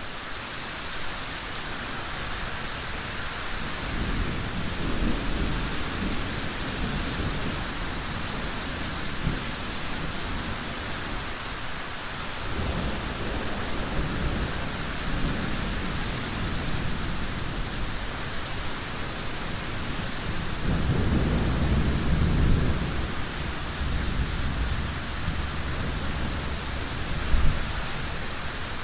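Thunderstorm with hail: a steady heavy hiss of falling precipitation throughout, and thunder rolling in three times, the loudest about three-quarters of the way through. A single short sharp knock near the end.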